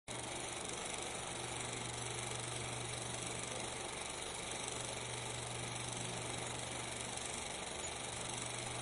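Steady hiss with a constant low hum underneath, unchanging throughout: the background noise of a silent 16mm film transfer.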